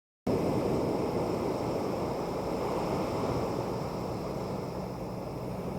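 Steady wash of surf on a small sandy beach, with wind on the microphone. It cuts in abruptly just after a brief moment of dead silence at the start.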